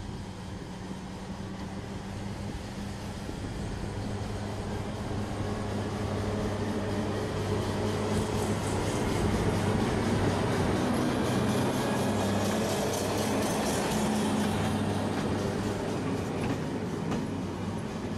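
SNCF BB 15000 electric locomotive and its coaches passing close by, with a steady hum that grows louder as the locomotive draws alongside. Faint wheel clicks over the rail joints follow as the coaches roll past.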